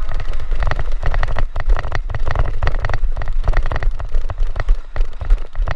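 Heavy wind-buffeting and handling rumble on a body-worn camera microphone as the player moves, with dense clusters of sharp clicks and rattles.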